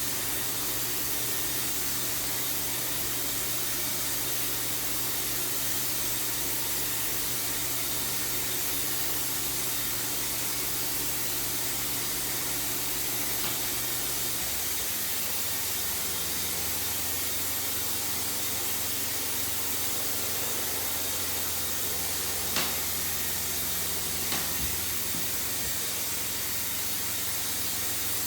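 Steady hiss of atomizing air from a Graco Pro Xp60 electrostatic spray gun spraying paint, under a low steady hum that drops in pitch about halfway through. Two short clicks near the end.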